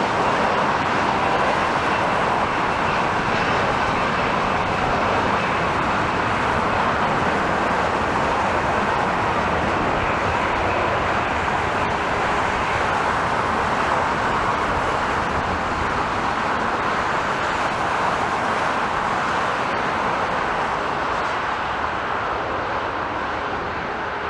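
Jet airliner's engines at takeoff power, a steady rush of noise with a faint whine near the start, slowly fading toward the end as the aircraft departs.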